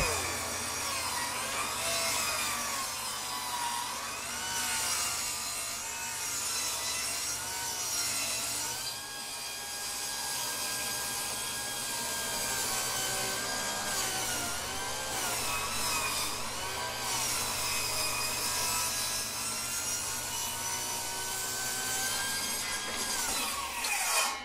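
Electric saw ripping soaking-wet treated lumber, its motor pitch wavering up and down as it labours in the cut. Near the end the motor winds down and stops, tripping its overload breaker from the strain of the wet wood.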